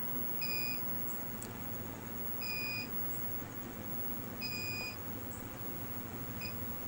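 A high electronic beep that repeats four times, about two seconds apart, the last one shorter, over a faint steady hum.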